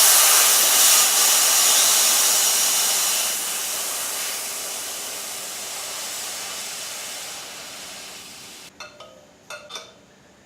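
Air hissing out of a Triumph Bonneville T100's front inner tube through the open valve stem, its core taken out to deflate the tyre. The hiss is loudest at first, fades as the pressure drops, and stops suddenly about nine seconds in. A few light clicks follow.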